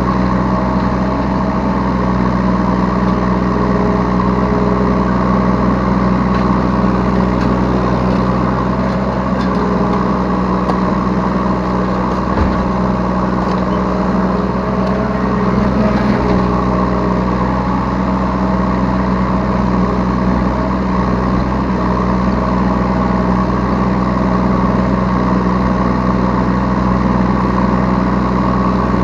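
Yanmar B3 Sigma mini excavator's diesel engine running steadily under work, heard from the operator's seat, with a single brief knock about twelve seconds in.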